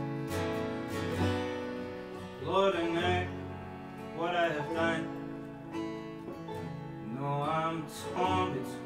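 Acoustic folk song played live: a strummed Gibson J-45 acoustic guitar and a keyboard, with a man singing three short phrases over them.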